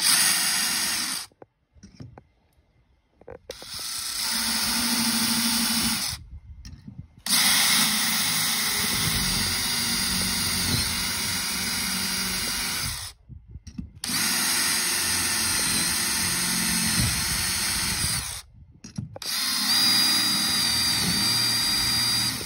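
DeWalt Atomic 20V brushless cordless drill boring pilot holes, a little over 1/4 inch, through a fiberglass boat deck. It runs in about five separate bursts, stopping and starting between them, with a steady high motor whine.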